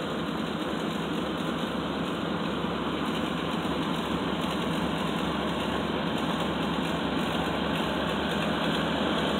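Full-size pickup truck's engine idling at low revs as the truck creeps down a steep off-road trail, a steady sound that grows slightly louder as the truck comes closer.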